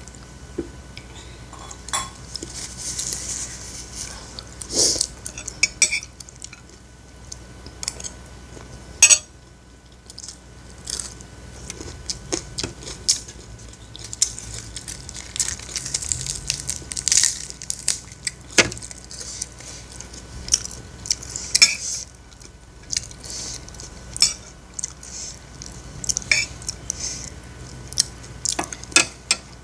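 Eating at the table: a metal spoon clinking and scraping on a plate in scattered sharp clicks, with napa cabbage leaves being torn and chewing.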